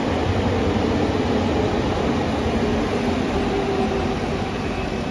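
A train running past: a loud, steady noise with a faint hum in it.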